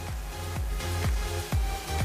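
Background music with a steady kick-drum beat, about two beats a second, coming in and rising at the start.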